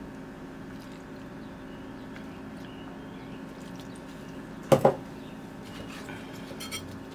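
Orange juice being poured from a glass jar into a blender cup of kale, over a steady background hum. One sharp knock comes about two-thirds of the way through.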